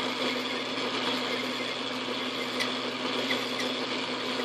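Metal lathe running steadily with a hum, a hand file held against the spinning steel bar to file off a sharp edge.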